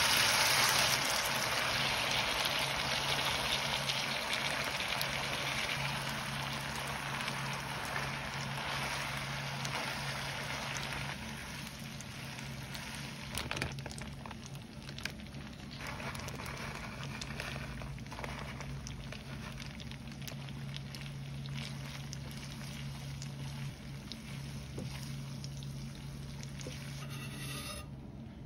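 Spaghetti sizzling in hot oil with fried garlic in a frying pan, loudest at first and slowly dying down as it is tossed with tongs, with a few light clicks of the tongs. A steady low hum runs underneath.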